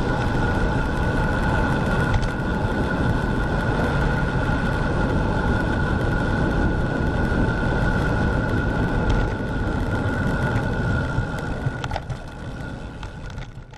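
Wind rushing over an action camera's microphone and tyres rumbling on asphalt as a bicycle coasts downhill at about 40 km/h, with a steady high whistle over it. The noise eases over the last two seconds as the bike slows.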